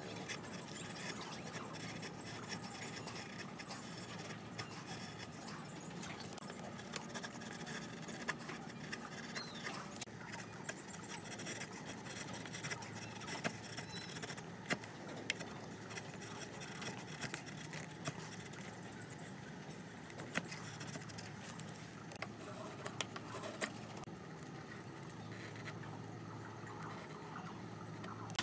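Chisel paring wood by hand pressure, with soft scrapes and scattered light clicks over a faint steady background noise.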